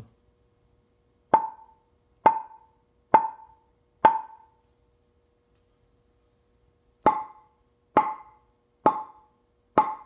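Rubber mallet tapping wooden guitar body blanks in a tap tone test: four taps about a second apart, a pause of about three seconds, then four more. Each tap is a short knock that rings briefly with a clear tone.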